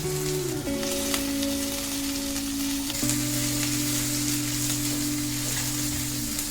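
Food sizzling and frying in hot oil in a pan, a steady hiss, over background music of held chords that shift about half a second and three seconds in.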